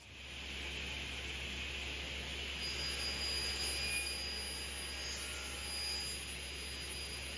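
Format 4 sliding table panel saw running steadily at speed, a constant low hum under a broad hiss.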